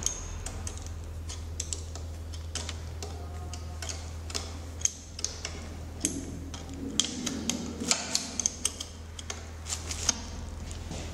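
Irregular small clicks and taps of hands working the metal mounting ring and fittings where the collimator meets the X-ray tube housing, coming thicker in the last few seconds, over a steady low hum.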